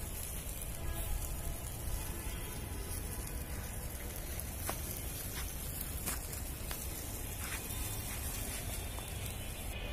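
A whole koral fish in a wire grill basket sizzling over hot charcoal: a steady hiss with a few sharp pops and crackles in the second half.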